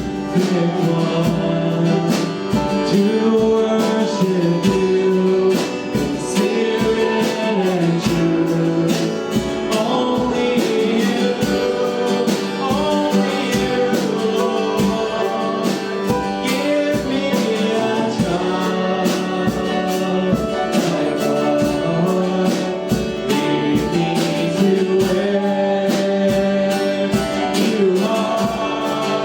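Worship music: singing with instrumental accompaniment, including guitar, over a steady beat.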